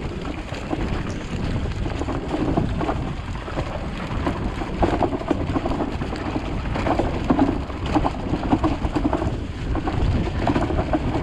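Wind and rain rumbling on the microphone of an electric chopper scooter riding along a wet, muddy dirt track, with irregular knocks and rattles as it goes over the bumps.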